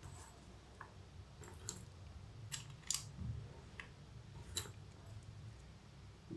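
Mechanical keyboard key on a lubed Akko Lavender Purple tactile switch pressed by hand, giving faint, irregularly spaced clacks as the stem bottoms out on the housing, with no spring ping.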